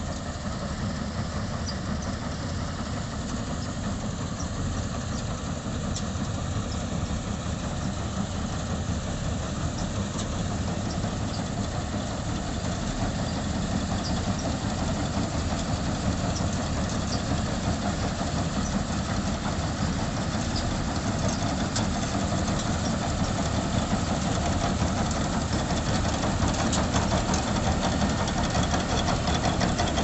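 Engine of a Standard combine harvester running steadily as the machine cuts standing paddy, growing gradually louder as it comes closer.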